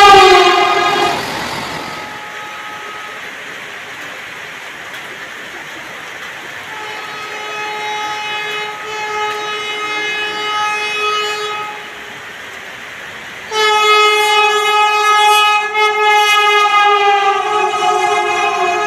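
Vande Bharat Express horn sounding over a steady rushing noise. A loud blast opens and fades within a second or two, a fainter held note follows midway, and a long loud blast starts about two-thirds of the way in and drops in pitch near the end as the train passes.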